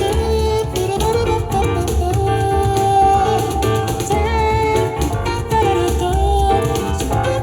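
A song with singing and plucked guitar over a steady bass beat, played back through a pair of powered stereo speakers and picked up by microphones.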